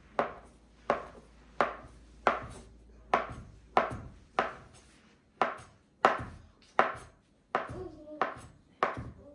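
Kitchen knife slicing a roll of thin dough into fine strips, the blade knocking on the tabletop with each cut. The cuts come in a steady rhythm of about one and a half a second.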